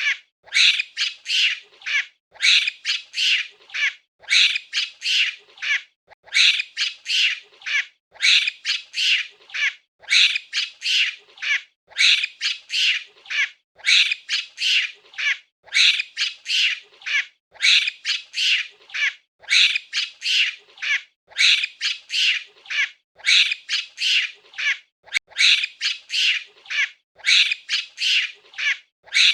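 A monkey's high-pitched calls in quick runs of several notes, each run lasting about a second and a half. The runs repeat evenly about every two seconds, like a looped recording.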